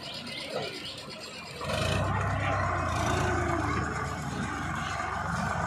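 Sonalika diesel tractor's engine pulling a trailer loaded with wet soil through mud. It runs quieter for the first second and a half, then comes back louder and holds steady under load.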